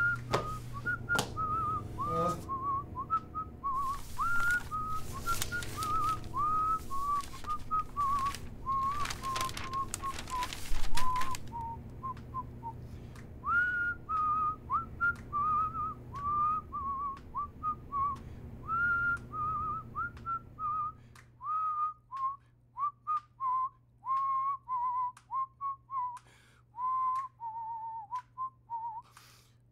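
A man whistling a lilting tune in short gliding notes. A few bursts of noise come through in the first half, the loudest about eleven seconds in.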